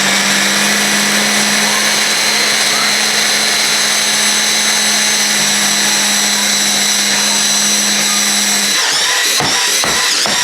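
Countertop blender running steadily at full speed, blending chopped vegetables. About nine seconds in it is pulsed, the motor cutting out and restarting a few times in quick succession.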